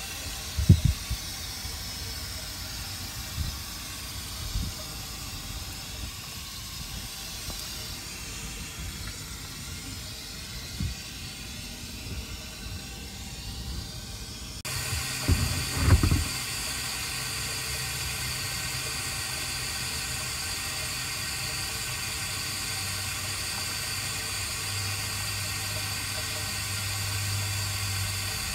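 Outdoor ambience: a steady hiss, with a low steady hum coming in about halfway, and a few dull low thumps on the phone's microphone.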